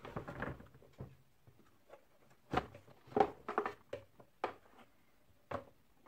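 Hard plastic parts of a vacuum cleaner's housing and motor assembly knocking and clicking as they are worked loose and handled: a string of short, sharp knocks, the loudest a little after two and a half and three seconds in.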